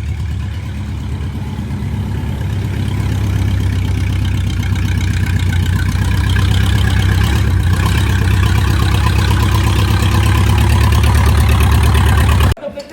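A vehicle engine running steadily, growing louder over the first six seconds or so, then cutting off abruptly near the end.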